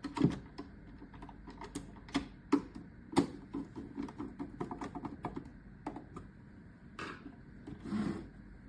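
Irregular small clicks and taps of plastic parts being handled and fitted together while the pressure plate is installed during reassembly.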